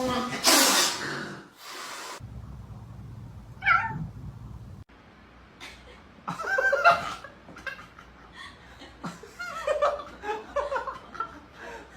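A domestic cat calling once, briefly, about four seconds in, after a short harsh noisy burst near the start. People laugh in short bursts through the second half.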